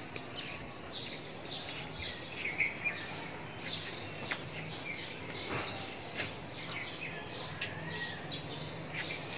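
Small birds chirping and calling, many short, quick chirps overlapping throughout, over a faint steady low hum.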